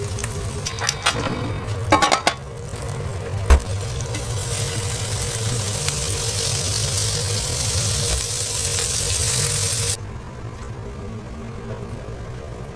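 Food sizzling on a hot griddle, a steady hiss, with a few sharp clacks about two seconds in and one more shortly after. The sizzle cuts off suddenly near the end, leaving a low steady hum.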